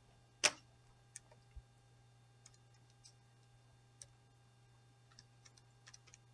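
Faint, scattered clicks of TI-84 Plus CE graphing calculator keys being pressed, after one louder knock about half a second in, over a faint steady hum.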